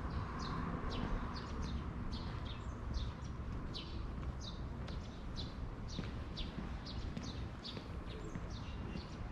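Small birds chirping over and over, short high chirps that drop in pitch, two or three a second, over a low steady rumble.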